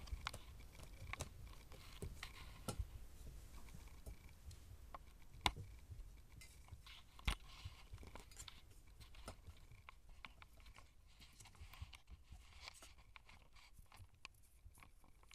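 Young Siamese kittens wrestling: faint, scattered taps, scrapes and scuffles of paws on carpet and against a wooden panel. Two sharper knocks stand out, about five and a half and seven seconds in.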